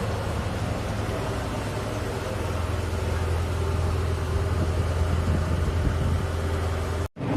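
Ferry boat's engine running steadily with a low hum and a wash of noise, breaking off abruptly near the end.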